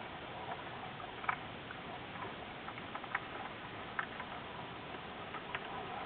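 Underwater hockey heard underwater in a pool: a steady hiss with scattered sharp clicks and knocks of sticks and puck striking the tiled pool floor, the loudest about a second in.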